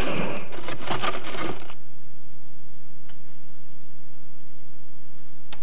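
A brief mechanical rattle lasting under two seconds, then steady tape hiss and hum with two faint clicks.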